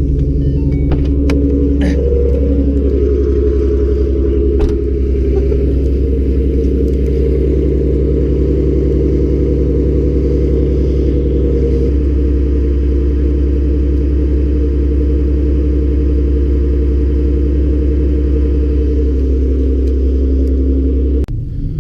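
Car engine idling steadily, a loud, even low hum, with a few light clicks in the first few seconds. The hum drops away suddenly near the end.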